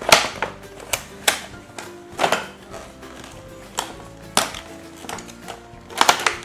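Irregular sharp clicks and taps of plastic toy packaging and tea-set pieces being handled as the set is unboxed, over background music.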